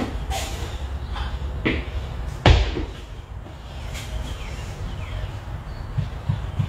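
Hex dumbbells being handled and set down on an exercise mat: a few light knocks and one heavy thud about two and a half seconds in.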